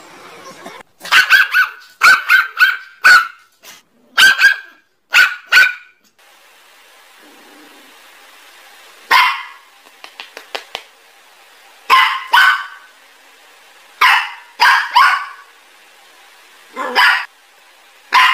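A beagle puppy barking, a quick run of high, yipping barks over the first few seconds. After a short pause a curly-coated poodle-mix dog gives single and paired barks every two to three seconds.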